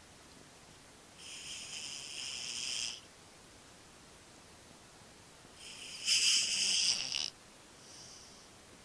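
Domestic cat snoring in its sleep: three hissing snores of one to two seconds each, the second the loudest and the third faint, near the end.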